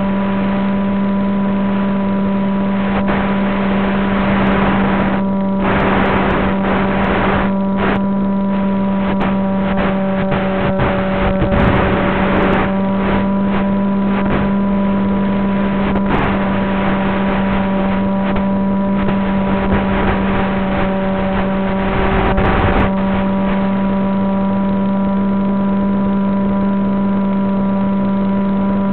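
FPV flying wing's electric motor and propeller heard through its onboard camera microphone: a steady buzzing hum at one unchanging pitch. Rushes of wind noise come and go about 5, 11 and 22 seconds in.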